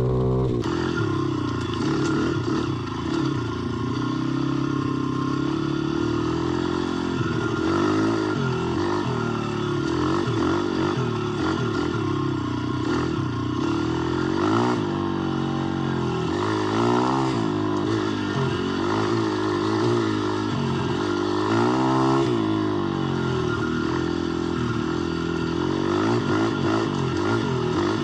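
Kayo 125 pit bike's single-cylinder four-stroke engine under way, its pitch rising and falling again and again as the throttle is opened and closed.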